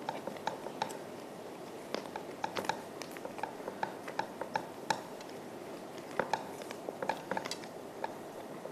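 Wire whisk stirring a thin yogurt and gram-flour kadhi batter in a non-stick pan, its tines making light, irregular clicks against the pan.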